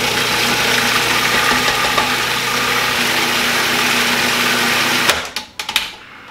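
Cuisinart food processor motor running steadily, blending pesto. About five seconds in it cuts off suddenly, followed by a few sharp clicks of the plastic lid and pusher being handled.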